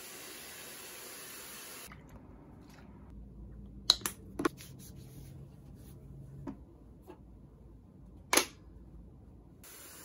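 Hair dryer blowing a steady hiss that stops about two seconds in. A quieter stretch follows with a faint low hum and a few sharp clicks and knocks, the loudest about four and eight seconds in. The blowing hiss comes back at the very end.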